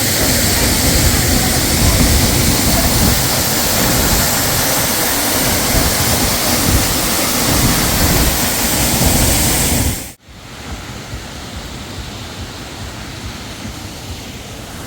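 Banjhakri waterfall rushing, a loud steady roar of falling water; about ten seconds in it drops suddenly to a quieter, steady rush.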